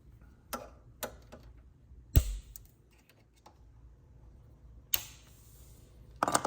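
Handling noises from reassembling a power recliner sofa: scattered clicks and knocks, with a heavy thud about two seconds in and sharp knocks near five seconds and near the end.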